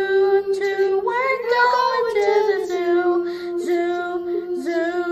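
Three boys singing a children's song together, holding long sung notes: a held note, a short higher rise about a second in, then a long lower note held almost to the end.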